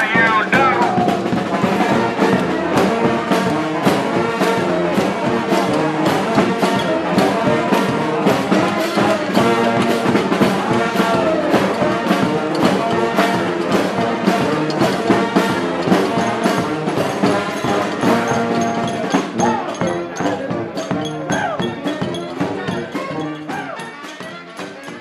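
Street brass band playing a tune, horns over a steady drum beat; the music grows quieter over the last few seconds.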